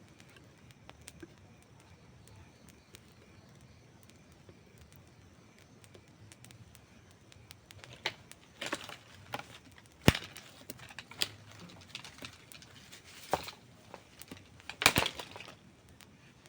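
Campfire crackling: a faint low hiss at first, then scattered sharp pops and snaps of burning wood from about halfway through, the loudest two near the middle and near the end.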